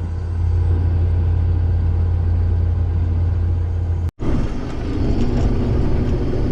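A heavy diesel engine running steadily with a deep, constant drone. About four seconds in, the sound cuts abruptly to another stretch of steady engine noise.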